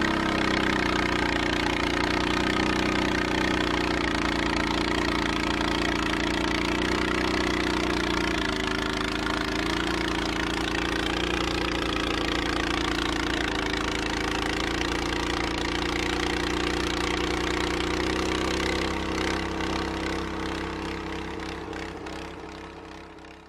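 Honda snowblower's four-stroke engine running steadily, fading out over the last few seconds.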